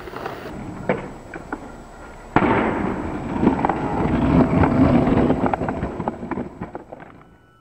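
Skateboard wheels rolling over rough pavement and paving-slab joints, a gritty rumble with rapid clacks and rattles, recorded up close on a camcorder microphone. It starts with a few scattered clacks, jumps in loudness with a sudden sharp clack about two seconds in, and fades out near the end.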